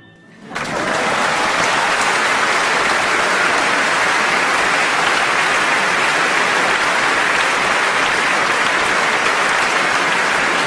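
A large concert-hall audience breaks into applause about half a second in, right after the final piano notes, and keeps up dense, steady clapping.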